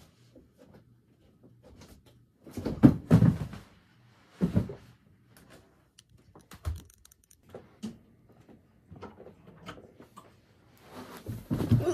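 A person climbing off a bed and moving about the room: irregular thumps and knocks, loudest in a cluster about two and a half to three and a half seconds in and again at four and a half seconds, then lighter knocks.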